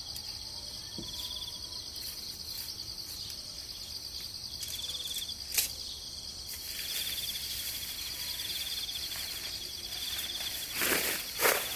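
Insects trilling steadily in the forest, in repeated pulsing runs that come and go. A sharp click sounds about halfway through, and a few louder knocks come near the end.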